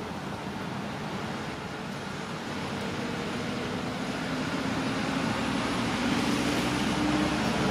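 Motor-vehicle noise, a steady rushing hum that grows gradually louder, with a low engine tone coming in partway through and rising slightly in pitch.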